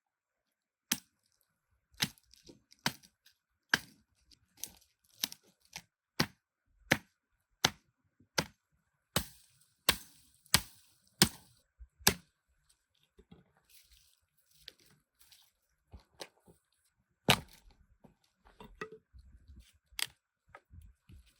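Repeated sharp chopping strikes, evenly paced at about one every two-thirds of a second for some ten seconds, then sparser and irregular, with one loud strike late on.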